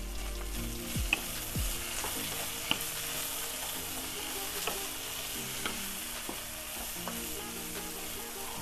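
Dried Bombay duck fish and chopped tomatoes sizzling on medium heat in a nonstick pan, stirred with a wooden spatula that scrapes and now and then taps sharply against the pan.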